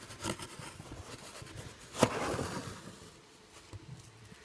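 Faint handling noises of detergent powder being put into a washing machine, with one sharp knock about two seconds in and a brief rustle after it.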